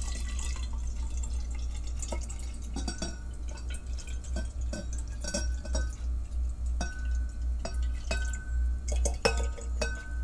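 Wine glugging and splashing as it is poured from a glass bottle into a narrow-necked stainless-steel insulated bottle. Toward the end the pour breaks into separate glugs and drips as the bottle runs empty.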